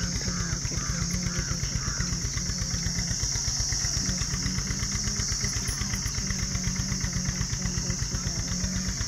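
Vehicle engine idling with an even, rapid low chugging, a steady high-pitched hiss above it.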